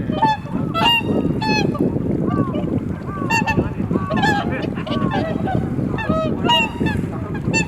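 Flock of swans calling continuously: many short, overlapping honking 'koo-koo' calls, with dense low wind rumble on the microphone underneath.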